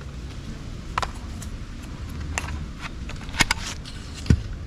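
Foam-dart sniper blaster being cocked and fired: a handful of sharp plastic clicks and snaps spaced about a second apart, with a quick pair a little past the middle and a duller thump near the end.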